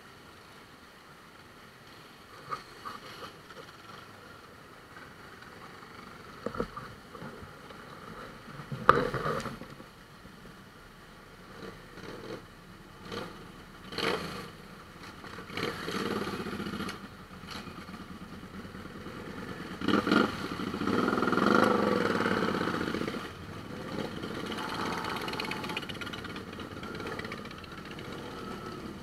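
A column of motorcycles riding slowly past one after another, engine sound swelling and fading as each goes by and growing loudest about two-thirds of the way through. A few sharp knocks stand out, the loudest about nine seconds in.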